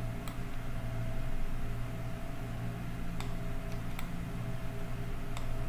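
Four short, sharp computer-mouse clicks spread over a steady low hum and hiss of the recording setup.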